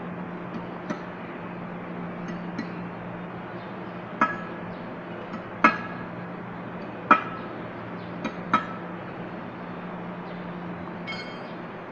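Hammer blows on metal during work on a cast transmission housing: four sharp, ringing strikes about a second and a half apart, with a few lighter taps before them and a short metallic clink near the end. A steady low hum runs underneath.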